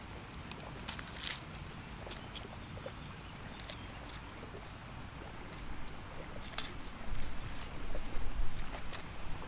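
Dry red-onion skin crackling and tearing as it is peeled away with a small pocket knife, in short scattered clicks over a steady hiss. A louder low rumble comes in near the end.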